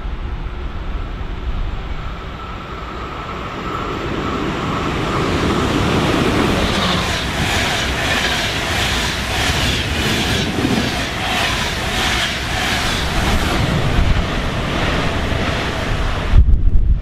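ÖBB Nightjet night train running through the station at speed, the noise building as it arrives, then the coaches' wheels clattering over rail joints about twice a second. Near the end it cuts off suddenly to wind buffeting the microphone.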